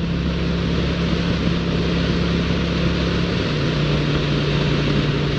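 Wind rushing over a motorcycle helmet, with the steady note of a 2007 Honda Shadow Aero 750's V-twin engine underneath, picked up by a helmet-mounted external microphone. The engine note steps down a little just past halfway.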